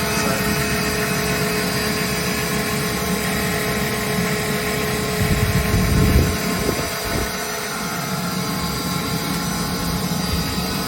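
KAESER ASD 50T SFC 25 kW rotary screw air compressor with variable-speed inverter drive running with its enclosure hatches open: a steady machine hum with a constant tone over a haze of air noise. About five seconds in, a louder low rumble swells for about a second and then settles.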